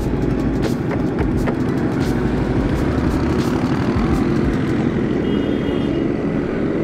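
A group of motorcycle engines, V-twins and four-cylinder bikes, running loud and steady.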